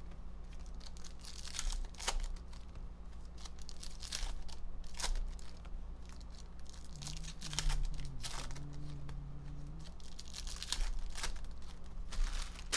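Foil trading-card packs being torn open and crinkled by hand, in a string of short, sharp rustles.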